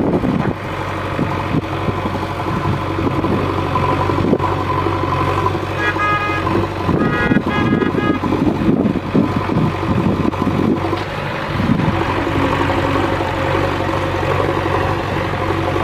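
JCB 3DX backhoe loader's diesel engine running steadily under work. A horn toots twice briefly about six and seven seconds in.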